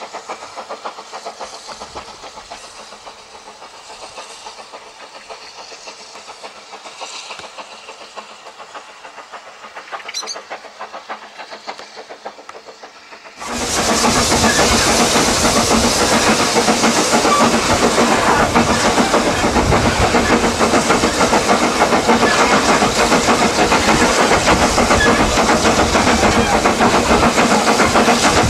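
A narrow-gauge steam train passing at a distance, faint, then an abrupt change about halfway through to the loud, steady rush of riding in a carriage behind Kerr, Stuart 'Premier' climbing Dolarddyn Bank: wheels clattering on the rails and the locomotive's steam, with wind noise.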